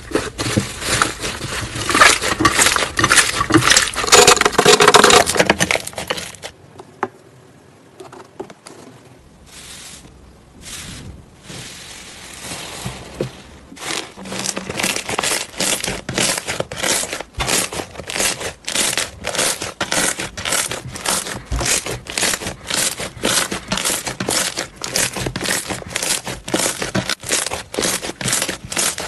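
Slime being squeezed, kneaded and pressed by hand, crackling and popping as air pockets burst in it. Dense crackling for the first few seconds, a quieter stretch in the middle, then steady crackles about two or three a second from about halfway on.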